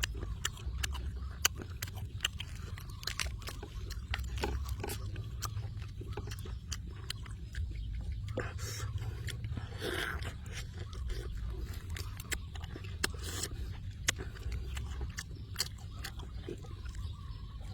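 A person eating noisily: chewing, with frequent small wet clicks and smacks, over a low steady rumble.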